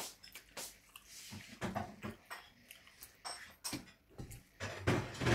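A person chewing food, with wet lip smacks and mouth clicks at irregular intervals.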